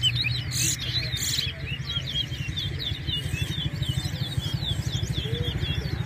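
Towa-towa seed finches singing rapid, twittering chirps in a song contest, one chirp hard on the next. A steady low hum runs underneath, and there are two short hisses in the first second and a half.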